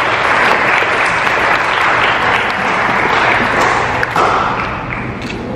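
A congregation of seated guests applauding, a dense patter of many hands clapping that thins out after about four seconds.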